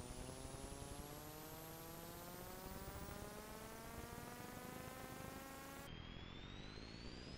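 Faint electronic tone with several overtones, gliding slowly upward in pitch, dropping back lower about six seconds in and starting to rise again, over a steady hiss.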